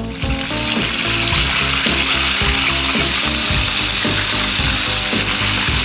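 Battered chicken pieces deep-frying in a pot of hot oil: a loud, steady sizzle that swells in about half a second in and holds.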